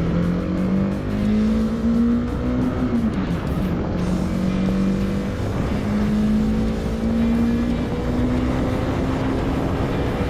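Honda CB300R's single-cylinder engine running on the move, its pitch climbing in steps, dropping about three seconds in, then climbing again.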